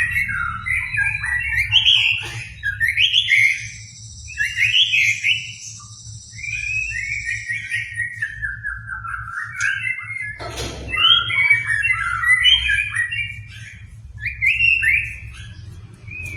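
White-rumped shama singing in full voice: rapid, varied whistled phrases with short pauses, over a steady low hum, with a brief noisy burst about ten seconds in.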